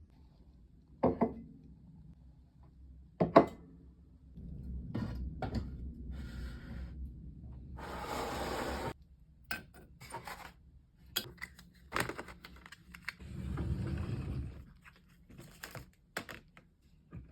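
A box of charcoal sticks and drawing tools being rummaged through, with items knocked, rattled and set down. Two sharp knocks come in the first few seconds, followed by a short rustle about eight seconds in, then a run of small clicks and clatters.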